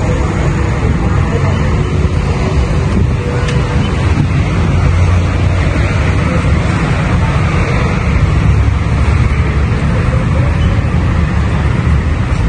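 Steady city street noise: a constant low traffic rumble with a hiss over it.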